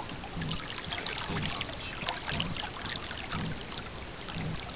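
Water trickling and splashing along the fibreglass hull of an FJ 13 sailing dinghy under way, with many small sharp splashes and a soft low pulse about once a second.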